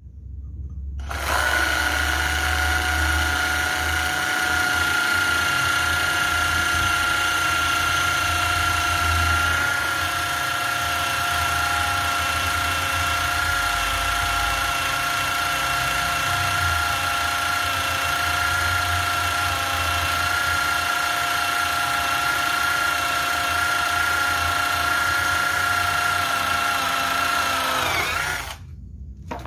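Corded Modern-brand electric drill converted to run on an 18-volt Makita battery, drilling a 5 mm hole through a metal plate. It is a steady motor whine with a strong high tone that starts about a second in, holds level for nearly half a minute, then winds down and stops near the end.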